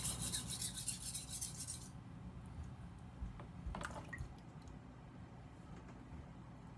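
Steel blade of a Global kitchen knife stroked quickly back and forth across a fine-grit whetstone, a run of scraping strokes about five a second that stops about two seconds in. Then only a faint low hum, with a light tap near four seconds.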